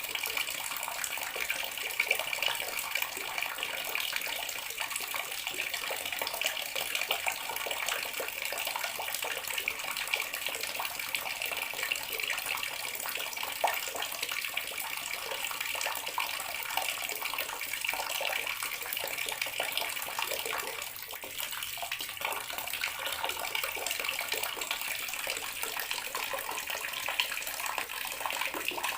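Bathroom water tap running steadily, the stream splashing into a basin with a constant rushing hiss.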